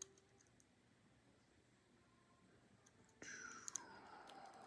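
Near silence: quiet room tone with a faint click at the start, then a soft hissing sound that begins about three seconds in and grows a little louder.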